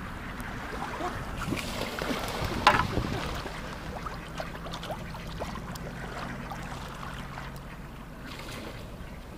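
Canoe paddling sounds: water splashing and dripping from the paddle, with one sharper, louder splash or knock about two and a half seconds in. A faint low steady hum runs through the middle.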